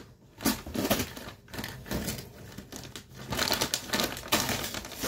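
Yellow printed paper wrapper being torn and peeled off a cardboard box, with irregular crackling, crinkling and tearing.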